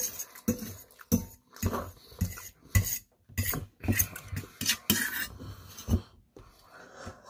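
Metal fork clinking and scraping against a stainless steel plate as food is scooped up, in irregular sharp clinks, often less than a second apart.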